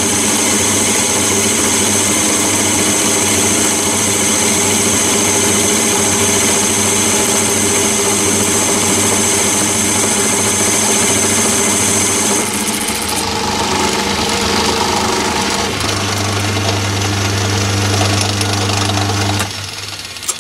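Metal lathe turning down an annealed cold chisel: the cutting tool chatters as it runs over the chisel's flats in an interrupted cut, over the steady running of the lathe. About two-thirds of the way through, the cutting noise stops while the lathe keeps running, and near the end the lathe is switched off.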